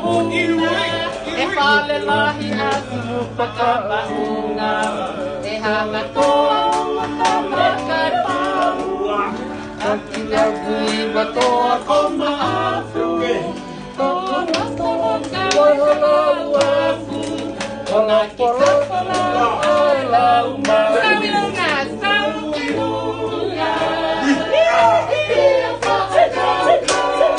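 People singing together, accompanied by a strummed acoustic guitar.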